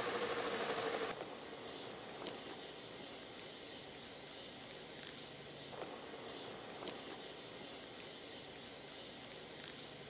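Spin-dryer motor of a Best Choice twin-tub portable washing machine humming steadily, then cutting off about a second in as the rinse-spin cycle ends. After that there is only faint outdoor background with a few light clicks.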